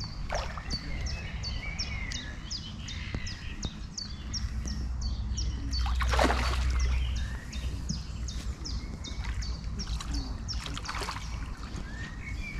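A hooked fish thrashing and splashing at the surface while being played on a rod, with sudden splashes about six and eleven seconds in, the first the loudest. Behind it a bird calls in a steady run of short, falling high chirps, about two to three a second.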